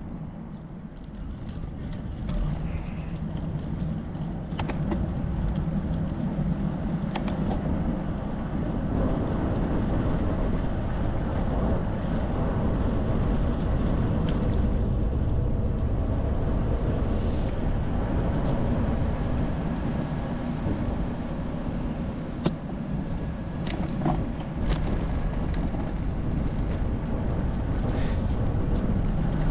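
Wind rushing over a handlebar-mounted action camera's microphone on a moving bicycle, with tyre and road noise. It grows louder over the first several seconds as the bike picks up speed, then holds steady, with a few short clicks in the second half.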